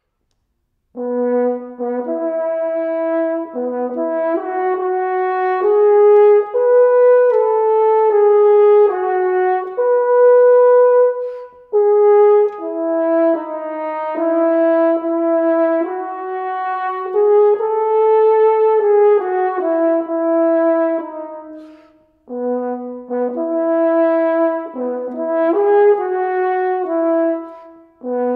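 French horn playing an unaccompanied melody, beginning about a second in. Notes are held and stepped up and down in phrases, with short pauses for breath between them.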